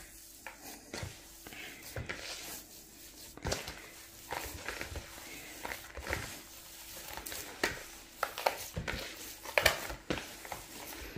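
A hand working moist semolina dough in a plastic bowl: soft, irregular squishes and light knocks against the bowl.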